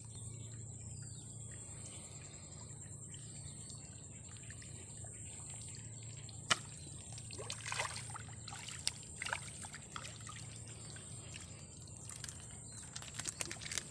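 Faint waterside ambience with a low steady rumble, broken by a single sharp click partway through and scattered small ticks and light water splashes. A cluster of splashes near the end comes from a hooked fish disturbing the surface of the water.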